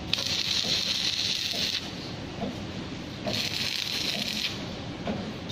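Hand pallet jack being worked to shift a heavy band-saw head into place: two hissing bursts, one about a second and a half long near the start and a shorter one past the middle, over light scrapes and knocks.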